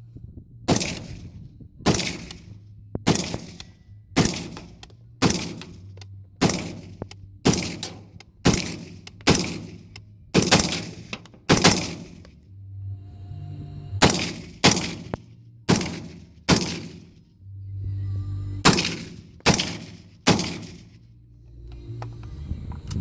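AR-15 rifle with a Motac upper on a Spike's Tactical lower firing semi-automatically: about twenty sharp shots at a steady pace of roughly one a second, broken by two short pauses.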